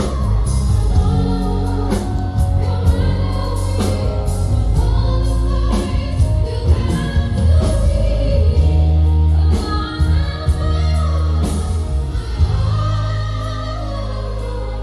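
A woman singing live with a band behind her: a heavy, low bass line and drum hits under her voice.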